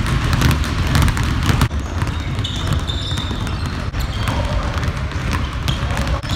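Many basketballs being dribbled at once on a hardwood gym floor, an overlapping, irregular patter of bounces ringing through the large hall. A few short high squeaks come in around the middle.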